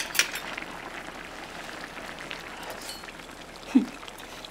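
A couple of quick clicks of a metal ladle and chopsticks in a pot of kimchi stew, over a steady low hiss. Near the end comes a brief low voice sound.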